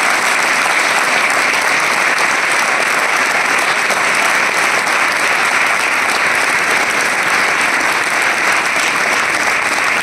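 A large crowd clapping in steady, dense applause that does not let up.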